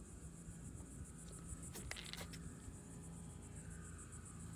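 Faint insects chirping in a rapid, even, high-pitched trill over a low steady hum, with a few sharp clicks about two seconds in.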